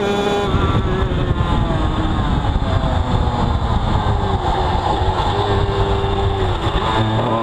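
Two-stroke racing motorcycle engine heard from an onboard camera at speed, with heavy wind rush on the microphone. Its pitch drops as the bike slows for a corner, then climbs again near the end as the throttle opens.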